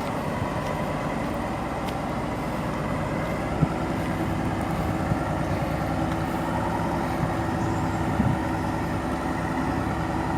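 Heavy diesel truck engine running steadily under load while hauling a heavy trailer load uphill, with a couple of brief knocks.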